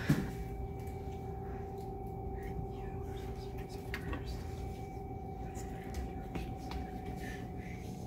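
A steady hum with two constant tones, probably a kitchen appliance or ventilation, under a few faint clinks and knocks of utensils and bowls; one sharp knock right at the start.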